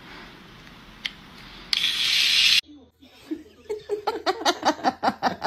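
A person laughing in quick repeated bursts, starting about three seconds in and speeding up. Before it, a loud rushing noise cuts off suddenly.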